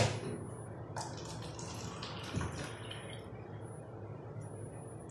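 Water being poured from a cup into a pan of sugar, an even splashing pour with a couple of light knocks.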